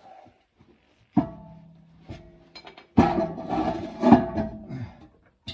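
Music: a few struck notes, each sounding suddenly and ringing on at the same few pitches before fading.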